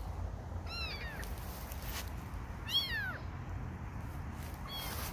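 A young kitten mewing three times, about two seconds apart: short, high-pitched cries that fall in pitch, the middle one the loudest.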